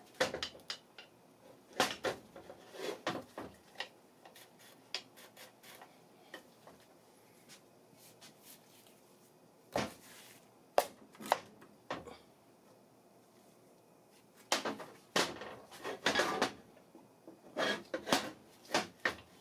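Irregular clicks and knocks of metal parts being handled, in short clusters with quiet gaps: a piston ring compressor worked on the cylinder of a Briggs & Stratton vertical-shaft engine block as the piston is fitted into the bore.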